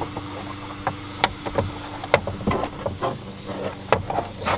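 Irregular clicks, taps and rustling of a springy folding sun shade being handled and fitted into a car's rear window, over a steady low hum.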